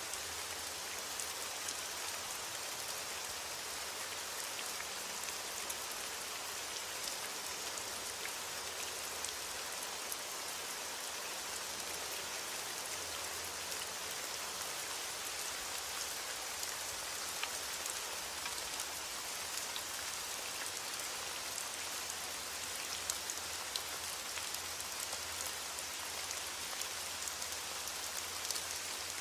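Heavy rain hitting a window pane: a steady, dense hiss with many scattered faint ticks of single drops.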